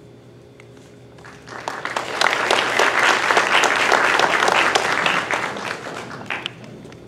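Audience applauding. The clapping swells about a second and a half in, holds, then dies away near the end.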